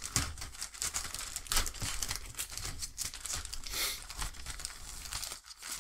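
Clear plastic bag crinkling and rustling as a plastic model-kit sprue inside it is handled, a dense run of small crackles.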